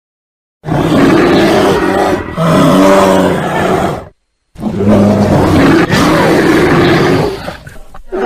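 Bear roaring loudly: two long, rough roars of about three seconds each with a brief silence between them, and a third roar starting near the end.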